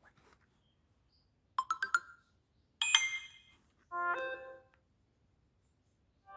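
Three short electronic alert tones from a Samsung Galaxy A02 phone, played one after another with pauses between them. First comes a quick run of bright plucked notes about a second and a half in, then a ringing chime, then a lower chord-like tone, each lasting under a second.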